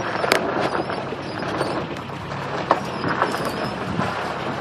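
Off-road truck tires rolling slowly over creek-bank gravel and rocks: an irregular crackling and popping over a low rumble, with a sharper pop about a third of a second in and another near the three-quarter mark.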